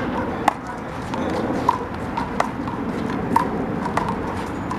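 Big blue rubber handball in a rally: a series of sharp smacks, about one a second, as the ball is struck by hand and hits the wall and pavement. Some smacks carry a short ringing ping.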